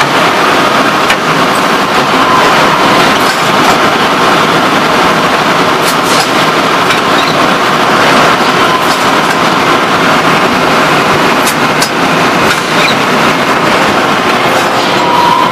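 2004 SIPA SF 8/3 three-cavity PET stretch blow molding machine running: a loud, steady mechanical clatter and hiss, with occasional sharp clicks.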